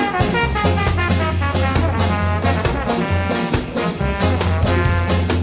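Background music with a steady beat and a bass line under a pitched melody.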